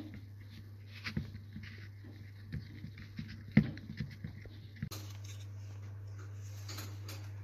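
Handling of a Model T trembler coil's wooden case as its lid is worked off: scattered light wooden knocks and scrapes, the sharpest about three and a half seconds in, over a steady low hum.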